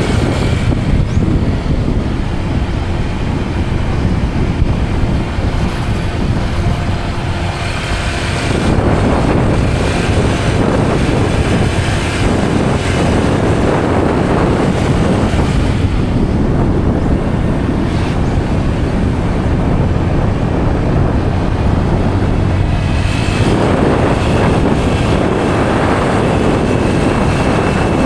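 Wind buffeting the microphone over the rumble of a vehicle on the move along a road; the rushing gets stronger for a stretch about nine seconds in and again for a few seconds near the end.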